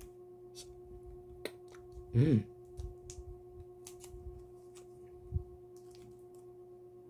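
Crinkling and ticking of a Ritter Sport chocolate bar's plastic wrapper being worked at by hand while it resists opening. About two seconds in there is a brief strained vocal grunt, and a soft thump comes near the end, all over a steady faint tone.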